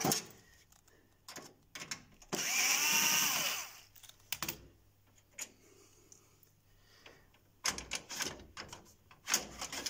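A cordless power screwdriver runs once for about a second and a half, backing out the bolt that holds the copier's paper feed assembly. Near the end come a series of clicks and knocks as the metal feed assembly is gripped and worked loose.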